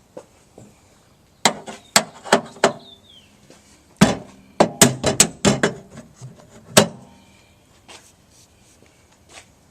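Hammer blows on the sheet-metal door structure of a minivan, each with a short metallic ring. Four strikes come about a third of a second apart, then a quicker run of about eight, then one last blow.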